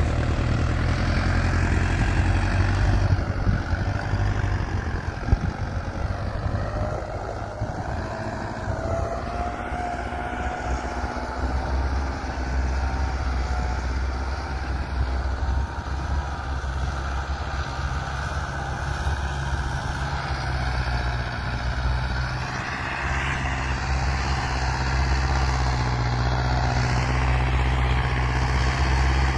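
Mahindra Novo 655 4WD tractor's diesel engine running with a steady low drone. The drone shifts and grows stronger partway through.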